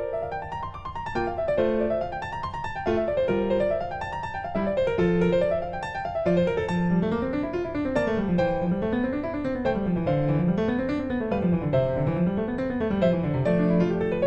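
Background piano music, quick rising and falling runs of notes over a lower accompaniment.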